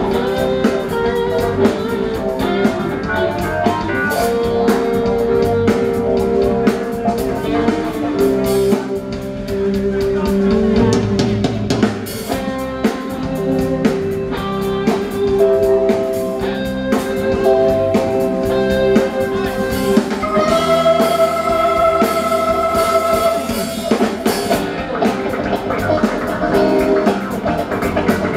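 A live rock band playing: electric guitars, bass guitar, drum kit and keyboard together, with guitar lines and held notes over a steady beat.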